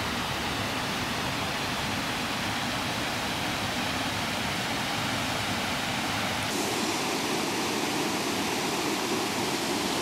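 Small woodland waterfall rushing steadily over a rock ledge and splashing through a rocky stream. The rush gets fuller and deeper about two-thirds of the way through.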